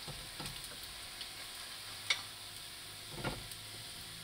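Fried calamari rings sizzling faintly in a frying pan as they are lifted out with a fork, with a sharp fork clink about halfway through and a softer knock a little later.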